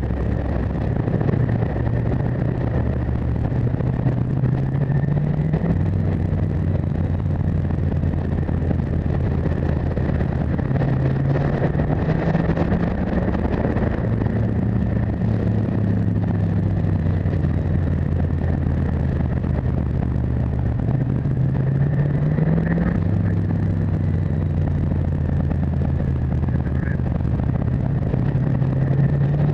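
Motorcycle engine running steadily under way, heard from a camera on the bike, its pitch rising and falling gently with the throttle, over a constant rush of wind and road noise.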